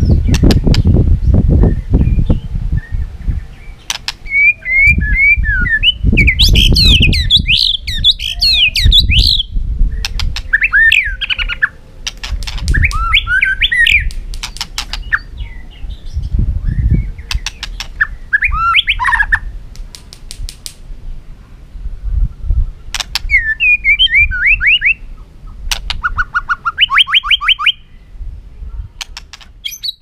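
White-rumped shama singing in several bursts of rapid, repeated whistled notes and quick sweeps, with pauses between phrases. Sharp clicks and low thumps are heard throughout.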